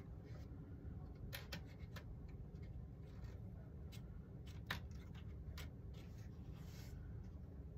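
Faint clicks and light taps of a leading-edge strip being worked into the notches and slots of model glider wing ribs, the sharpest tap a little past halfway, over a low steady hum.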